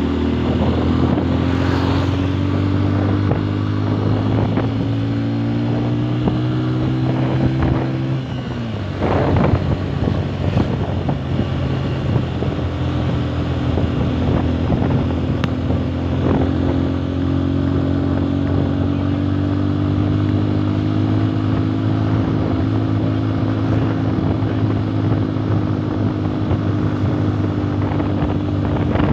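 Motorcycle engine running under way, its pitch climbing slowly, then dropping sharply about a third of the way in as the throttle eases or a gear changes, and climbing again. Wind rushes over the microphone throughout.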